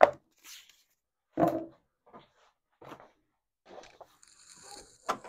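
Scattered handling noises of cardboard and painter's tape at a workbench: a sharp knock at the start, a short louder sound about a second and a half in, a few faint taps and rustles, and a brief high hiss near the end.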